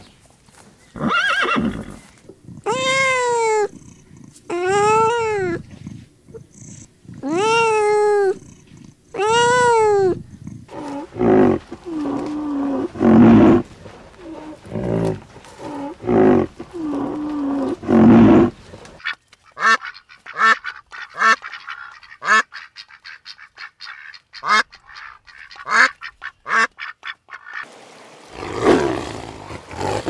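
A series of different animal calls in turn: four high calls, each rising then falling in pitch, about two seconds apart, then lower, shorter calls, then a fast run of short sharp calls. Near the end a tiger's roar begins.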